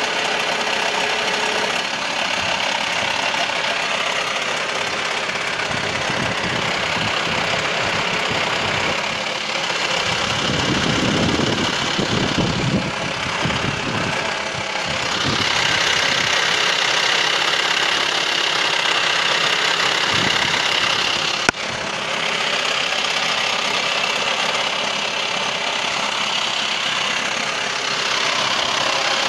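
VW T5 2.5 TDI (AXD) five-cylinder diesel engine running with a clattering knock. About a third of the way in, a deeper rumble swells for a few seconds, and a single sharp click comes about two-thirds of the way through.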